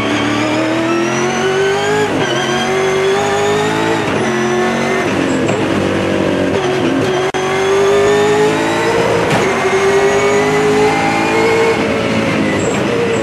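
V8 touring car's V8 engine heard from inside the cockpit, accelerating hard: its pitch climbs steadily, then drops back at each of several upshifts.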